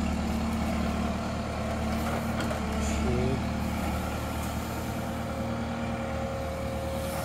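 A large engine running steadily at an even speed, like a truck or digger at work.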